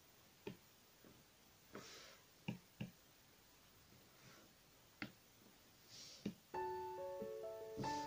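Faint, scattered taps of an Apple Pencil on an iPad screen. About six and a half seconds in, soft piano background music begins.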